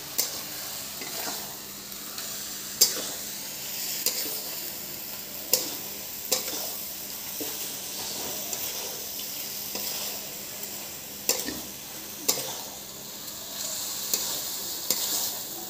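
Metal spatula stirring and tossing chilli paneer in a hot kadai. The steady sizzle of frying is broken by a few sharp clacks, spaced irregularly, where the spatula strikes the pan.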